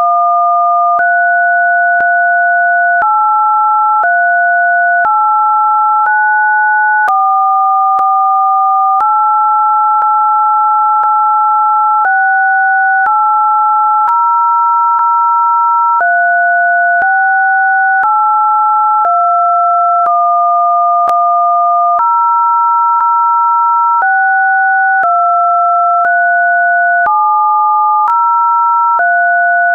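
Computer-generated pairs of pure sine tones, two sounding together at telephone-keypad (DTMF) pitches. The pair switches to a new combination about once a second, sometimes holding for two or three seconds, with a click at each switch.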